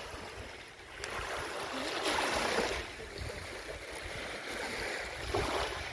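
Small waves washing onto the shore of the Novosibirsk Reservoir. The wash swells louder about two seconds in and again near the end, with wind rumbling on the microphone.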